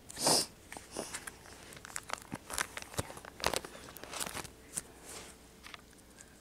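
Plastic binder sleeve pages rustling and crinkling as a card binder is handled and its pages are turned, with scattered soft clicks and taps, the loudest rustle just after the start.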